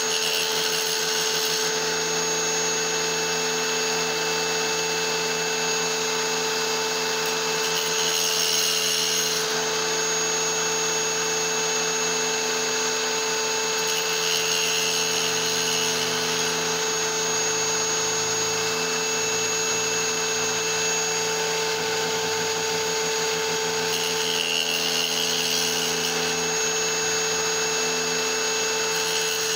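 Tile saw running with a steady whine while its blade grinds into a small piece of petrified wood, with a louder gritty hiss several times as the stone is pressed into the blade.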